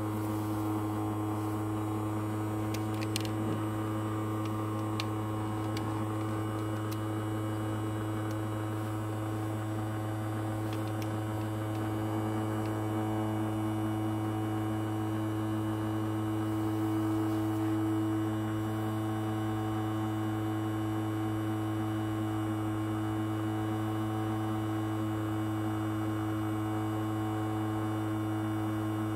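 Small household ultrasonic cleaner running with coins in its water tank: a steady electric buzzing hum.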